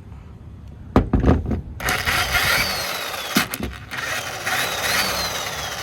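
Corded electric drill plugged into the truck's 400-watt inverter outlet, run twice. A knock comes about a second in, then the motor spins up with a high whine that rises and falls for about a second and a half, stops briefly, and runs again for about two seconds.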